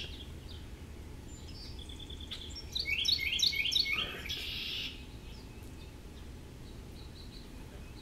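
Small songbirds chirping at a seed feeder: a quick run of about half a dozen sweeping chirps about three seconds in, then a short harsh, buzzy note just after four seconds.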